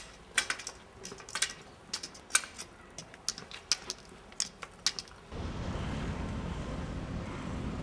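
Tip of a blind man's white cane tapping on stone paving: sharp, irregular clicks about two a second. About five seconds in it cuts to steady street traffic noise.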